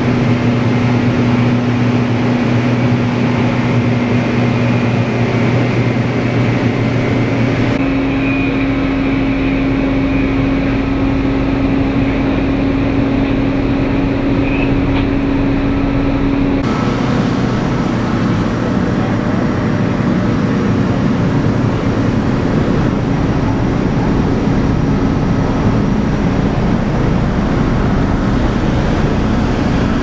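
Steady drone of a working ship's engines and deck machinery, with a low hum whose pitch shifts slightly twice.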